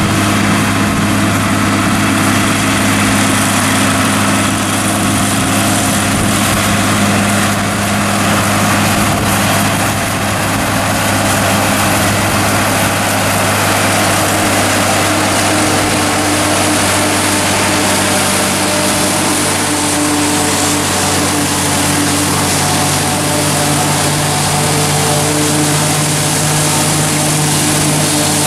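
John Deere 4055 tractor's six-cylinder diesel running steadily under load, powering a New Holland FP230 pull-type forage harvester as it chops corn silage, with a steady rushing whir from the harvester's cutterhead and blower.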